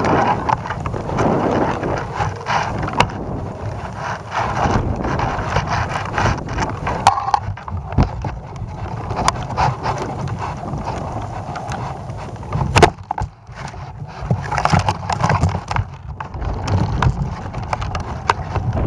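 Wind buffeting the microphone of a camera swinging on a tethered balloon payload, with irregular knocks and rattles throughout and one sharp knock about thirteen seconds in.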